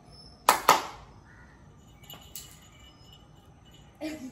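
Two sharp clicks about a fifth of a second apart, half a second in, then a low, steady background.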